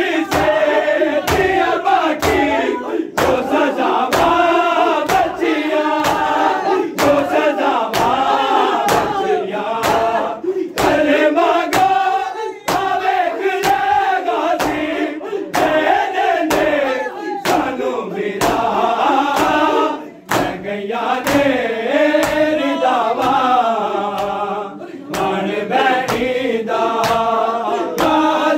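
A crowd of men chanting a nauha together, with a steady beat of open-hand slaps on bare chests (matam), about one or two slaps a second.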